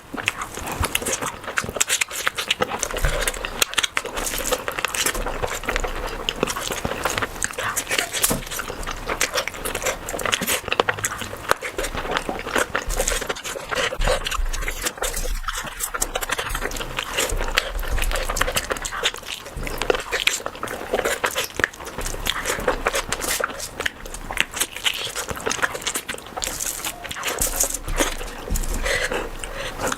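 A person eating rice and curry: steady chewing with wet mouth clicks and smacking.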